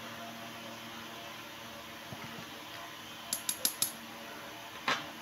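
Small metal watch parts of an Omega Seamaster clicking under the fingers as they are pressed and worked at the case edge: four quick light clicks about three seconds in, then a single louder click near the end.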